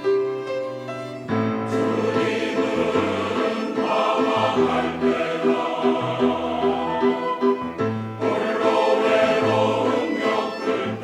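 Church choir singing an anthem with instrumental accompaniment. The full choir comes in about a second in, over a steady pulsing accompaniment figure.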